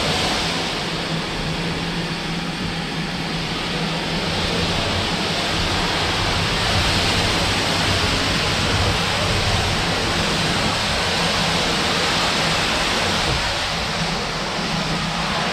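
Steady hissing noise with a low hum underneath, running evenly, as the O gauge pannier tank locomotive hauls its van slowly along the track.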